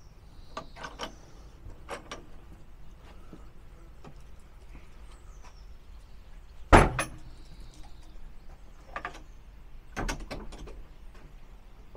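Scattered footstep-like clicks and knocks, with one much louder single knock a little past halfway and another cluster near the end; faint bird chirps.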